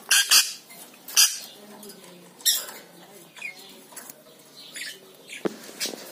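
Rainbow lorikeet clambering on its metal wire cage: about six short, sharp, high-pitched sounds, spaced a second or so apart.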